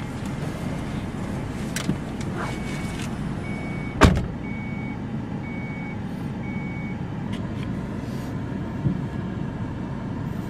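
A car's engine running steadily, heard from inside the cabin. About six short high beeps come a little more than one a second, starting a couple of seconds in, and a single loud knock sounds about four seconds in.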